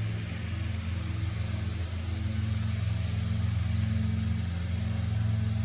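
A steady low mechanical hum, like a motor or engine running at a constant speed.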